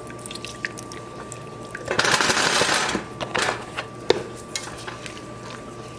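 Wooden spoon stirring and scraping a thick roux in a stainless steel pot as heavy cream goes in, with scattered clicks of the spoon against the pot. About two seconds in, a louder rush of noise lasts about a second.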